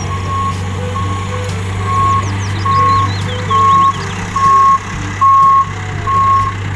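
Dump truck's reversing alarm beeping steadily, a single tone a little over once a second, over the steady hum of the truck's engine running.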